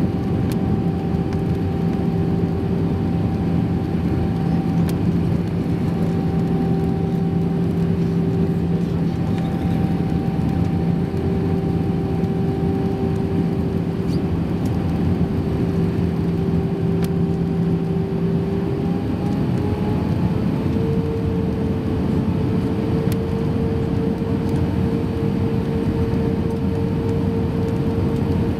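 Airbus A320 cabin noise heard from a seat over the wing on approach: a steady rush of airflow with the jet engines' droning hum. About nineteen seconds in, the engine note rises in pitch over a couple of seconds and holds higher.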